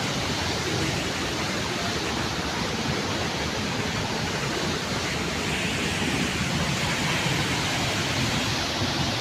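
Steady, dense rush of a waterfall, swollen and running very full.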